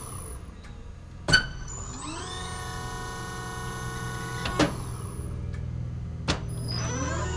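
Hydraulic test bench power pack cycling a locking-type Commander main gear actuator: a steady motor-and-pump hum whose whine rises in pitch as the actuator strokes, twice. Three sharp clicks break in along the way.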